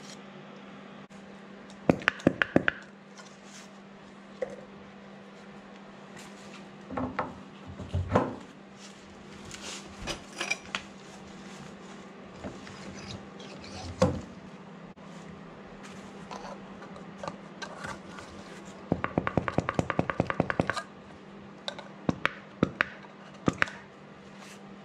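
Metal tools and parts being handled, clinking and knocking now and then, with a rapid run of clicks for about two seconds around two-thirds of the way through. A steady low hum runs underneath; no drill motor is running.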